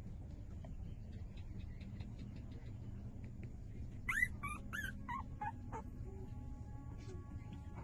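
Newborn puppies whimpering, with a quick run of five or six high squeals, each falling in pitch, starting about four seconds in. Music begins softly near the end.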